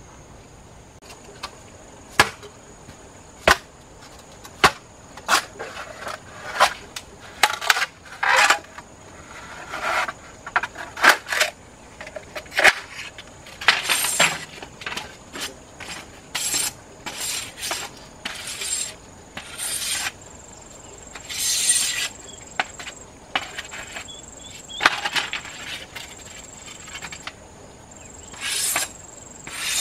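Sharp wooden knocks of bamboo, then a series of short scraping strokes of a machete blade shaving along a bamboo pole. A steady high insect drone runs underneath.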